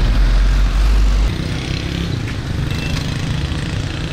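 Road traffic noise: vehicle engines running in busy street traffic. A deep low rumble stops abruptly a little over a second in, leaving a lighter mixed engine noise.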